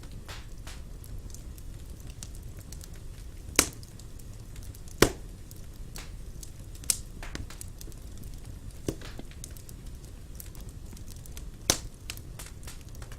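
Wood fire in a fireplace crackling over a low, steady rumble, with five sharp pops; the loudest comes about five seconds in.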